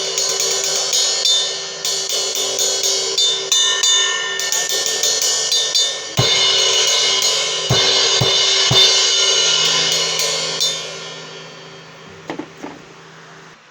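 Meinl HCS 18-inch brass crash-ride cymbal struck with a stick: a fast run of ride strokes, then a few heavier crash hits, and the wash rings out and fades over the last few seconds.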